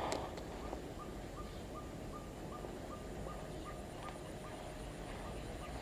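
A bird calling a steady series of about ten short notes, all at the same pitch, roughly two or three a second, over faint outdoor background noise.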